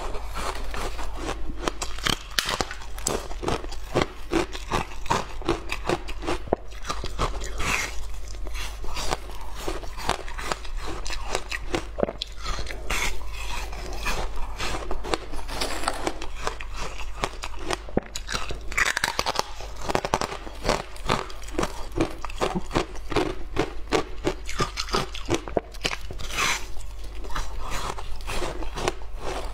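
A person biting and chewing a slab of frozen passion fruit ice, a rapid irregular run of sharp crunches and cracks several times a second.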